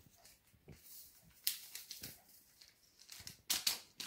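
A small sachet of dried yeast being torn open and crinkled, a few short crisp rustles and crackles, the loudest near the end.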